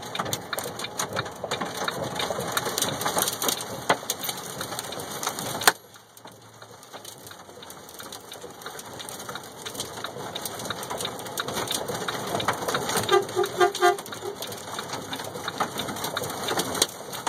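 Heavy rain pelting a truck's cab and windshield, a dense crackling hiss that drops off suddenly after a click about six seconds in, then slowly builds back up. A short run of about five quick beeps comes in the second half.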